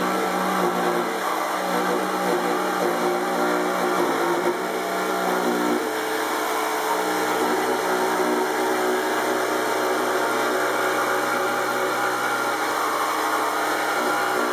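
Electric jigsaw running steadily as its blade cuts through a thick wooden board along a curved line; the motor note drops a little about six seconds in.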